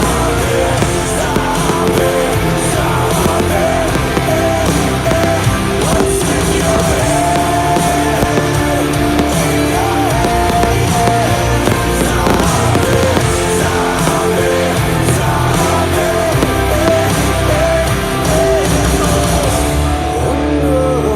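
A song playing loudly and steadily, with a singing voice carrying the melody over full instrumental backing.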